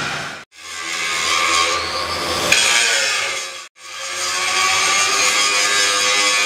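Grinder working steel, a steady grinding noise in three stretches broken twice by brief, abrupt dropouts.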